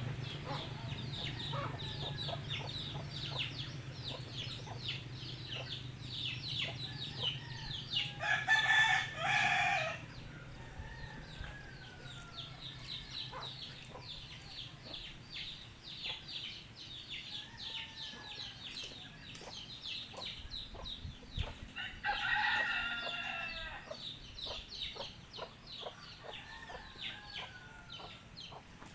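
A rooster crowing twice, each crow lasting about two seconds, the first about eight seconds in and the second a little past twenty seconds. Chickens cluck and call with short falling notes in between, over a constant rapid high ticking.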